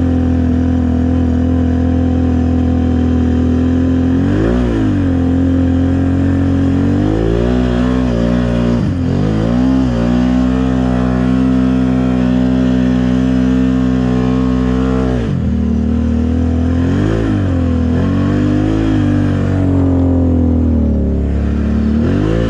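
Off-road vehicle engine running close by at a steady low speed and revved up and back down several times in short blips, as in slow crawling through mud.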